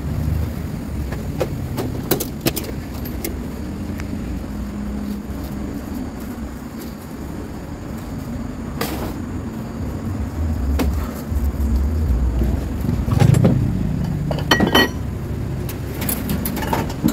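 A steady low engine rumble, with scattered sharp metallic clinks and knocks from tool work, a cluster of them near the end.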